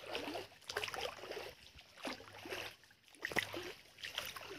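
Faint, irregular sloshing and splashing of water in a shallow stream, several short strokes at uneven intervals.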